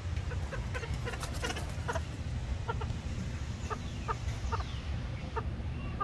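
Inca terns calling: a run of short clucking notes, about a dozen at uneven spacing, over a steady low rumble.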